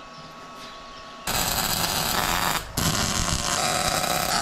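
Welding arc crackling as a hub is tack-welded onto a go-kart trailing arm. It starts suddenly about a second in, stops briefly, then starts again.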